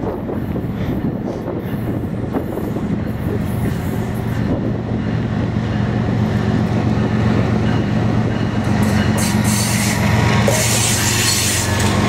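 GE ES44DC diesel locomotive approaching and passing close, its V12 diesel engine giving a steady low hum that grows steadily louder. About nine seconds in, hissing wheel and rail noise swells as the lead unit comes alongside.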